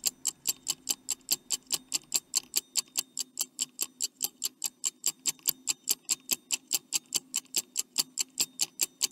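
Stopwatch ticking sound effect: quick, even ticks, about four and a half a second, counting down the time to answer a quiz question. A faint steady low hum runs under it.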